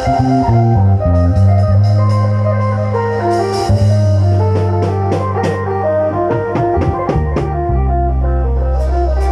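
Isan lam phloen folk music: a plucked phin lute plays a quick melody over a held low drone, with drum and cymbal strikes marking the beat.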